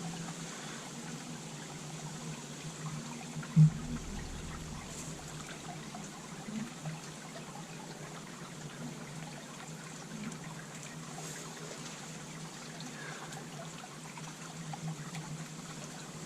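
Honeybees buzzing in a steady, wavering hum around an open top-bar hive, with a single thump about three and a half seconds in.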